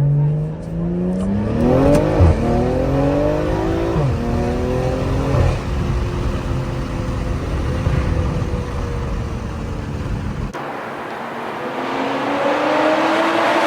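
Car engine accelerating hard, its note climbing, with two quick drops in pitch about 2 and 4 seconds in as it shifts up, then running more steadily. Near the end the sound changes abruptly to a hissier background with another engine note rising.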